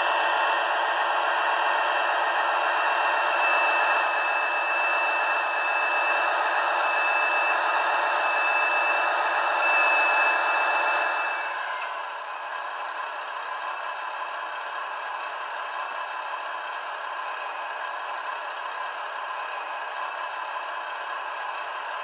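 Recorded diesel engine sound from the DCC sound decoder of a Trix V160 model locomotive, played through its small onboard speaker, with no deep bass. It runs at a higher level with a thin, steady high whistle over it, then about halfway through drops to a quieter, steady idle.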